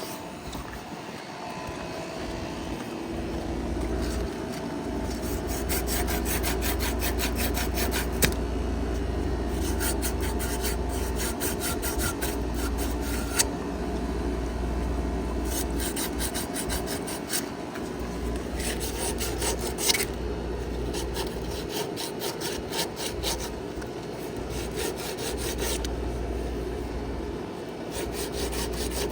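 Sandpaper rubbed by hand in rapid back-and-forth strokes, coming in several spells with short pauses between them, over a steady low rumble.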